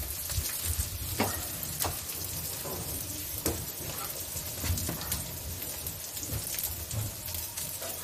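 Chopped garlic and onions sautéing in hot oil in a wok: a steady sizzle with scattered pops and crackles.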